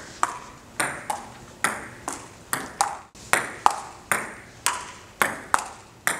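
Table tennis rally: the ball clicking off the paddles and the table in a steady back-and-forth rhythm, a little more than two sharp ticks a second.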